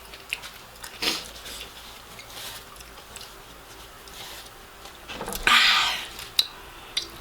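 Close-miked eating sounds: chewing with scattered wet mouth clicks and smacks. A louder breathy sound lasting under a second comes about five and a half seconds in.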